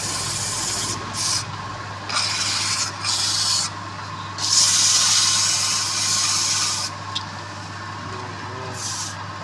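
Wood being sanded or rasped in a series of hissing strokes, each about half a second to two seconds long with short pauses between, over a steady low hum.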